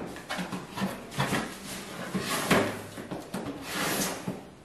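A cardboard packing box being opened and its contents handled: irregular scrapes, rustles and light knocks of cardboard, with louder scrapes about halfway through and again near the end.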